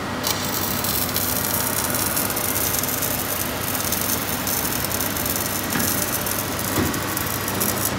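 Electric arc welding on steel plate: a steady crackling hiss that starts a moment in and cuts off just before the end.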